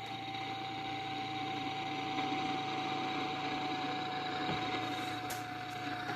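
Radio receiver static: an even hiss carrying a steady whistling tone that drifts slightly lower in pitch, getting a little louder over the first couple of seconds.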